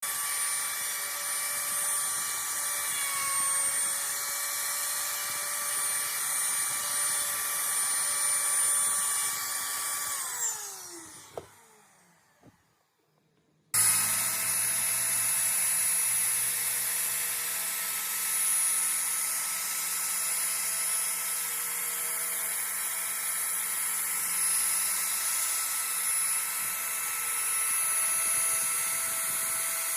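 Trim router motor in a small router table running at high speed with a steady whine. About ten seconds in it is switched off and spins down with falling pitch. After a couple of clicks and a short silence it is switched back on and runs steadily again.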